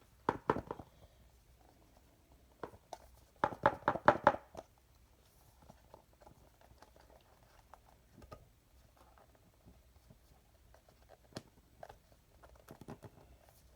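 Hands handling box contents and packaging: scattered knocks and clicks, with a quick run of taps about three and a half to four and a half seconds in and a single knock near the end.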